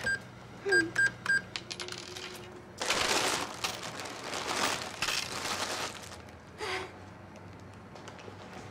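Shop cash register rung up: a few short key beeps with clicks. Then about three seconds of rustling and clinking as coins and purchases are handled at the counter.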